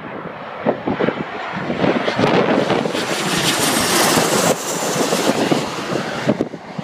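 Twin-engine jet airliner on landing approach passing low overhead: its jet engine noise swells to its loudest and brightest as the plane crosses directly above, then falls away near the end. Gusts of wind buffet the microphone throughout.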